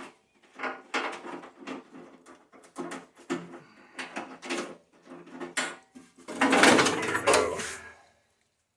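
Irregular knocks, clicks and rattles of tractor sheet metal and wiring being worked free by hand. A longer, louder scraping clatter comes about six and a half seconds in.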